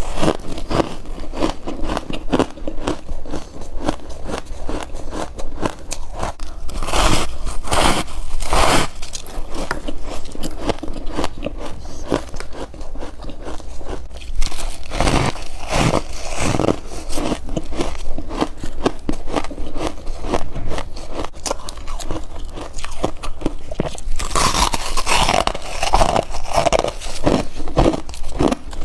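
Freezer frost being bitten and chewed close to the microphone: dense, crisp crunching made of many short cracks, with heavier bites scattered through.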